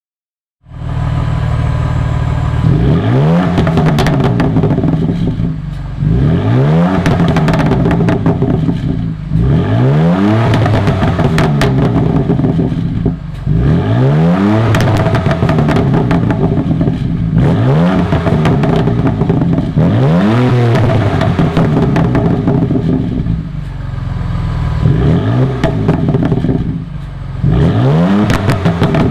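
BMW F80 M3 Competition's twin-turbo straight-six, stationary and revved in quick blips from idle about every three and a half seconds: each rev climbs fast and drops back, with crackles from the exhaust. The sound cuts in abruptly just under a second in.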